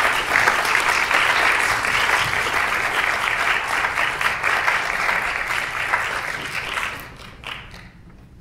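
Audience applauding, steady for about seven seconds and then dying away, with a few last claps near the end.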